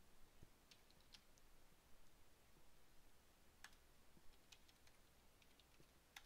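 Faint, scattered keystrokes on a computer keyboard against near silence: a few quick clicks, a firmer single one about halfway, then a short run of clicks near the end.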